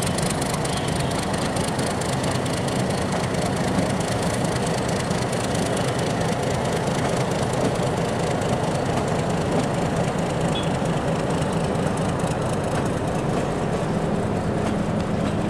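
Diesel locomotive engine running steadily as it moves a long metre-gauge passenger train slowly through the yard, with the coaches' wheels rolling on the rails. The engine's low hum grows stronger near the end.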